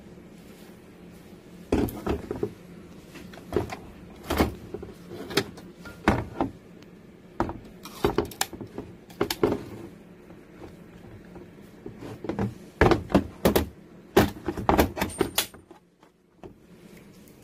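Handling noise from a pneumatic sign stapler: irregular clicks, knocks and clatter as the tool is turned over and its parts are worked over a hard plastic carry case.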